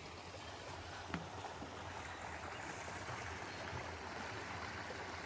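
Steady rushing of a small river's flowing water, with a single light click about a second in.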